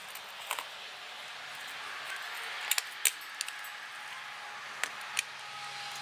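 Sharp metallic clicks and clinks as a washing-machine motor's stator and its metal bracket are handled and fitted together: a quick cluster of three about three seconds in and two more near the end, over a steady background hiss.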